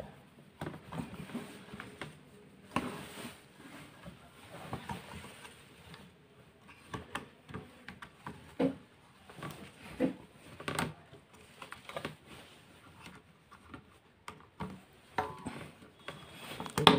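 Irregular plastic clicks, taps and rubbing as the cover is pressed and worked onto a vacuum cleaner motor by hand.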